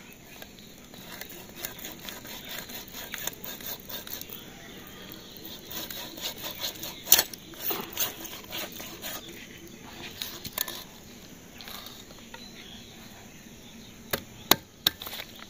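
Sharp wooden knocks of a stick striking the back of a blade to drive it through a large fish, coming irregularly, with a pair of louder knocks near the end.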